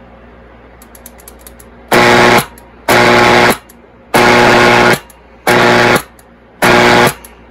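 A vintage Zenith Trans-Oceanic tube radio's speaker gives a loud, steady-pitched buzzing hum in five separate on-off bursts, each about half a second to a second long. A few faint crackles come before the first burst.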